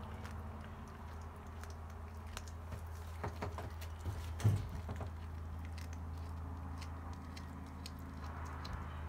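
Cat chewing and biting on a freshly caught small rodent: scattered small wet clicks and crunches, bunching up around the middle with one louder knock. A steady low hum runs underneath.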